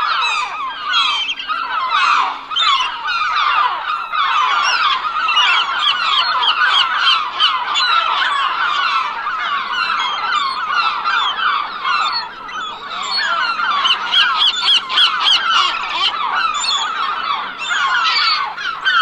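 A large flock of seagulls calling all at once: many short cries overlapping in a dense, continuous chorus.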